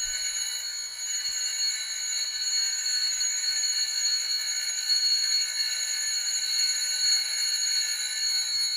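Diamond dresser dressing the grinding wheel of a Harig surface grinder: a steady high-pitched whine made of several ringing tones, which stops suddenly right at the end.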